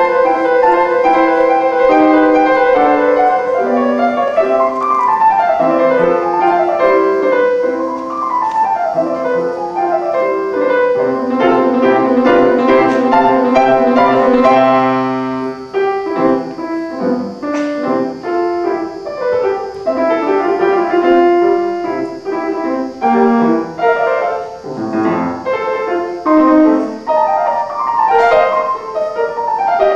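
Solo grand piano playing a classical sonatina: a dense, continuous run of notes for the first half, a held chord about halfway through, then lighter playing in more separated notes and phrases.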